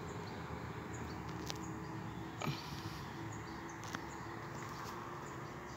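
Quiet outdoor ambience: a steady background hiss with a faint hum, a few scattered small clicks and faint, short high chirps.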